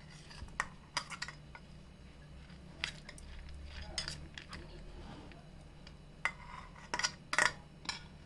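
A kitchen utensil clinking and scraping against a bowl in a few light, irregular clicks as grated vegetables and coconut are mixed into soaked moong dal.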